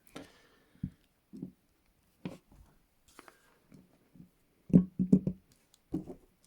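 ASP Model 100 steel handcuffs being handled and closed: scattered light metallic clicks, then a quick run of louder ratchet clicks about five seconds in.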